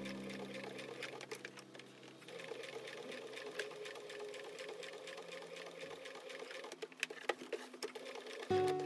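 Electric sewing machine stitching through fabric, a fast, even run of needle strokes. Background music fades out at the start and comes back near the end.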